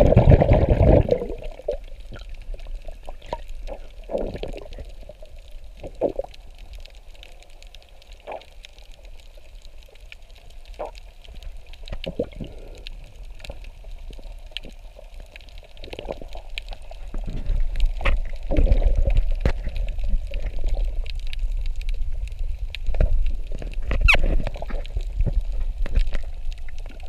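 Muffled underwater bubbling and water movement with scattered sharp clicks, growing heavier and more rumbling in the last ten seconds.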